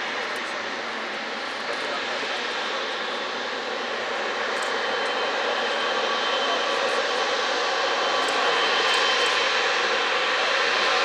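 Boeing 777-300ER's GE90 turbofan jet engines running: a steady rush of jet noise that grows gradually louder, with a faint high whine coming in during the second half.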